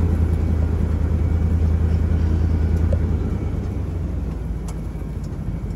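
Pickup truck engine and tyre rumble heard from inside the cab while driving, a steady low rumble that eases off and grows quieter in the second half as the truck slows.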